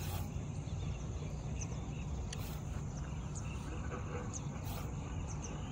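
Outdoor ambience: a steady low rumble with faint, scattered high chirping, broken by three short hissing noises about two seconds apart.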